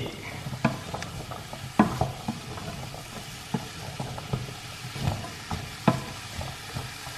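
Wooden spoon stirring diced carrots and butternut squash in a stainless-steel saucepan. The cubes shift and knock against the pan at irregular moments over a steady sizzle of butter and onion, sweating without browning.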